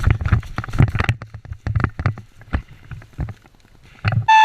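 Rapid, irregular knocks and thuds for about three seconds, then a man's loud "woo!" shout near the end, its pitch falling.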